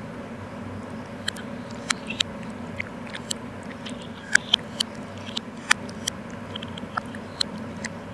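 Metal spoon clinking and scraping against the inside of a small glass jar while digging into soft pudding: a string of irregular sharp clicks over a steady low hum.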